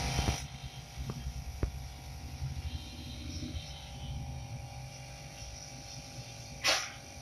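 Steady electrical hum of aquarium equipment, typical of an air pump or filter running beside the tank. It is broken by a brief disturbance at the start, two small clicks a second or so in, and a short louder noise near the end.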